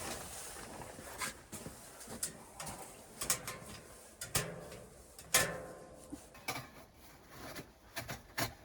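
Metal wood-stove chimney pipe being handled and fitted: irregular knocks, clanks and scrapes, the loudest about five seconds in.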